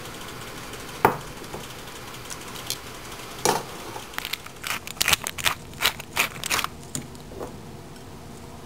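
Utensil clicking and knocking against a ceramic bowl while spaghetti is tossed in egg yolk sauce: a single sharp knock about a second in, another a couple of seconds later, then a quick run of clicks that stops before the end.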